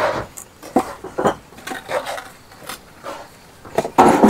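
Bricklaying on top of a brick wall: irregular clinks and knocks as bricks are set and tapped down into mortar, with a louder, longer scraping sound near the end.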